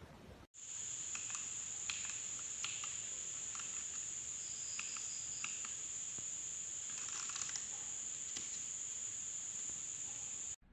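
A steady high-pitched trill, like insects calling, with a few scattered light clicks. It starts abruptly about half a second in and cuts off just before the end.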